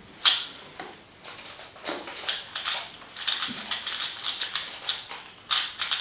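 A plastic 3x3 speed cube being turned fast during a timed solve: rapid clicking and clacking as the layers snap round, in quick flurries with short pauses between them.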